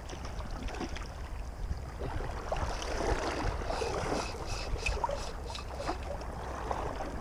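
Flowing river water washing around a wader, over a steady low rumble of wind on the microphone, with a run of small splashes around the middle.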